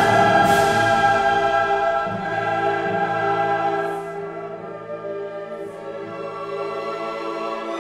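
Background music of choir and orchestra: voices singing long held notes over strings, softening about halfway through.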